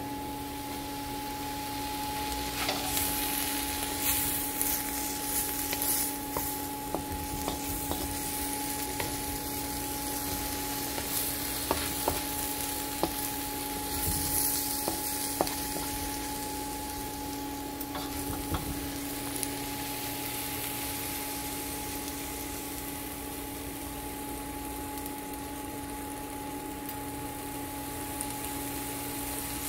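Vegetables stir-frying in a wok, sizzling steadily while a wooden spatula tosses them with scrapes and knocks, mostly in the first half or so. A steady two-tone hum runs underneath.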